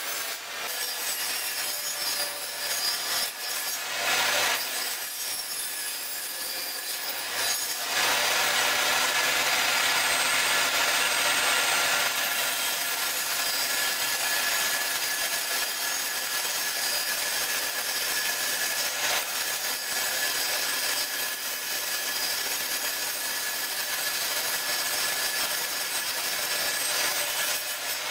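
Table saw running with its blade cutting into a wooden blank that is rotated over it in a sliding jig, shaving it down into a round tapered leg. The cutting is a steady rasping over the motor's low hum and grows louder about a third of the way in.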